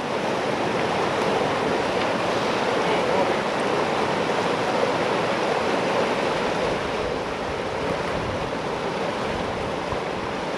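Creek water rushing steadily through a freshly blasted breach in a beaver dam, a loud, even rush of the impounded water draining out.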